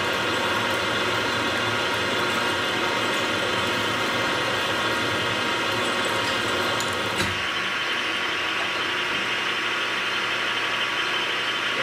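Milling machine spindle turning a 1-inch twist drill as it bores into round bar stock: a steady motor hum with cutting noise. About seven seconds in there is a click, and the lower part of the sound drops away.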